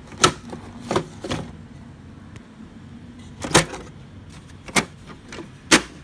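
Plastic clicks and knocks from an HP Laser MFP 135a printer as its toner cartridge and cover are handled: about six sharp, separate knocks, the loudest near the start and in the second half.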